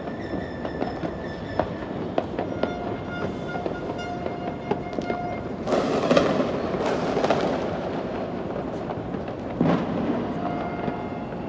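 New Year fireworks going off: a steady din of scattered pops and cracks, with two big bursts, the first about halfway through and the loudest, trailing off in crackle, and another near the end. In the first half, steady horn tones sound under the bangs.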